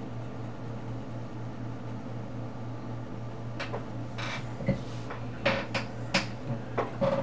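Steady low hum, then from about halfway a run of sharp clicks and taps from colouring tools being handled on the table.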